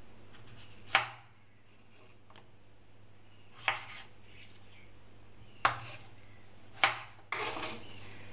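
A steel chef's knife cutting through tomatoes and knocking on a wooden cutting board: four sharp knocks, a second or two apart, then a short scraping sound near the end, over a low steady hum.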